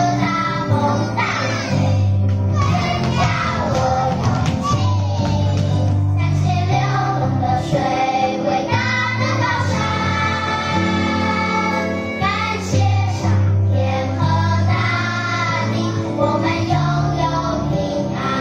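A children's song: singing over instrumental accompaniment with a steady, held bass line, playing for a dance.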